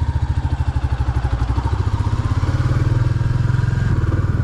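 Royal Enfield Classic 350's single-cylinder four-stroke engine pulling from low revs, its evenly spaced firing beats quickening as it accelerates.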